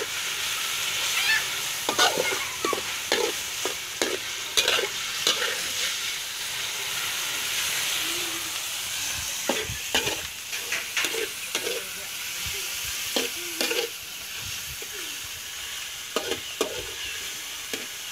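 Pork frying in a metal wok, a steady sizzle, with a metal spatula scraping and clanking against the pan in irregular runs of strokes as the meat is stirred.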